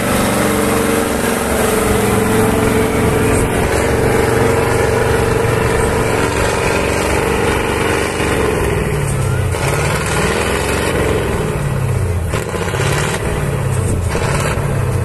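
A six-wheeled off-road trial truck's engine working hard in mud and sand. It holds a fairly steady note, then from about eight seconds in revs up and down again and again while the truck struggles for grip on the slope.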